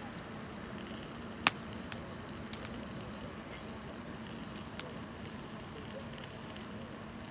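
Wood campfire burning: a steady hiss with scattered small crackles and one sharp loud pop about a second and a half in.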